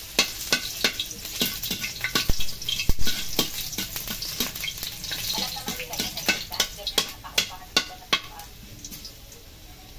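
Chopped garlic sizzling in hot oil in a metal wok, stirred with a metal spatula that clicks and scrapes against the pan many times. The stirring clatter thins out near the end.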